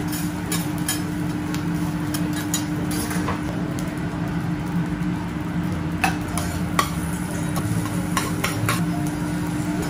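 Metal spatula and spoon tapping and scraping on a steel teppanyaki griddle while egg fried rice and diced vegetables sizzle. The taps are scattered, with small clusters about six and eight seconds in, over a steady low hum.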